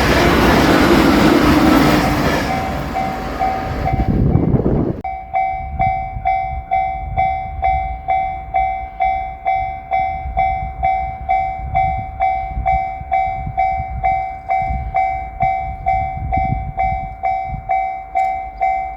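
The tail of a JR Shikoku 8000 series limited express train running over a level crossing, its wheels and running noise loud, then cutting off about five seconds in. The crossing's electronic alarm then rings on alone: a steady repeating ding of two tones, a little under two a second.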